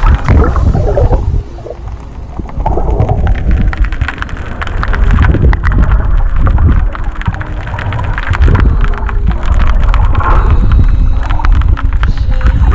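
Underwater sound picked up by a submerged camera: a loud, muffled low rumble of moving water with dense crackling and clicking.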